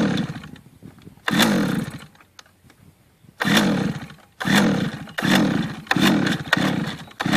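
Two-stroke chainsaw engine of a large RC helicopter being pull-started with its recoil starter: about seven pulls in quick succession, each a short whir that falls in pitch as it winds down. The engine does not catch.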